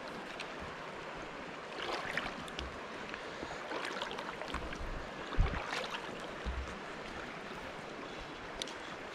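Shallow river running over stones, a steady rush of water. From about two seconds in there are several seconds of rustling with a sharp thump a little past the middle, then the water alone again.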